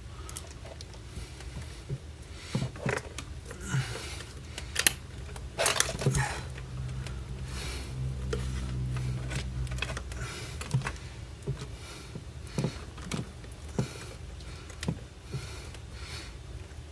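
Scattered clicks, taps and knocks from tools and small light-fitting parts being handled and fitted during an under-cabinet LED light install, over a steady low hum. The loudest knock comes about five seconds in, and a stronger low rumble runs from about eight to ten seconds.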